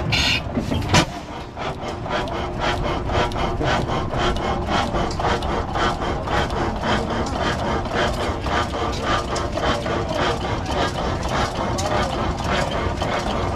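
Large antique hit-and-miss engine with twin heavy flywheels running, making a steady, even clatter of about three to four beats a second. A single sharp knock stands out about a second in.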